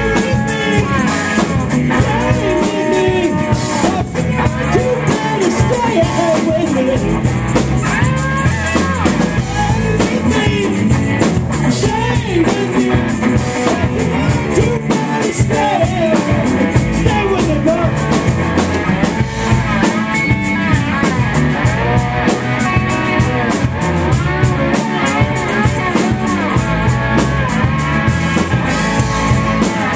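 A rock band playing live: electric guitars and drum kit with a man singing lead vocal.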